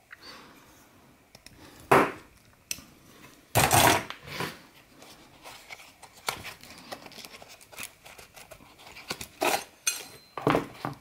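Knives being handled by hand: scattered clicks and knocks of a folding knife and metal blades, and short rustles of a nylon sheath as a fixed-blade knife is taken out of it.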